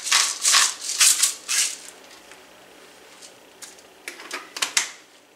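Hand pepper mill grinding black pepper in quick rattling twists, about three a second, stopping about a second and a half in. A few light clicks and knocks follow near the end.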